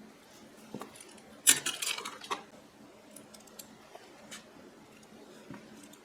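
Metal jewelry pieces clinking and jangling together as they are handled and sorted, with a cluster of clinks about one and a half seconds in and a few faint ticks afterwards.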